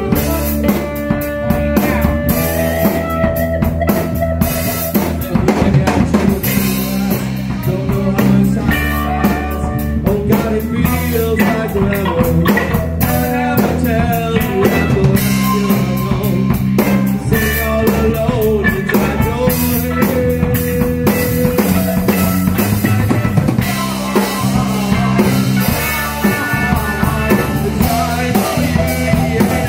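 Live rock band playing, with drum kit and guitar over a bass line and a steady driving beat.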